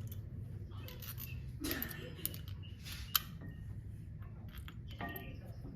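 A few light metallic clicks and clinks of tools and engine parts being handled, the sharpest about three seconds in, over a low steady hum.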